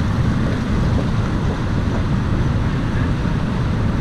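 Steady low rumble of wind buffeting the microphone, mixed with the drone of car traffic on the bridge roadway below.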